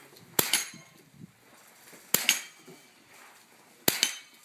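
Three rifle shots about a second and three quarters apart, each followed a split second later by the metallic ring of a hit on a steel target.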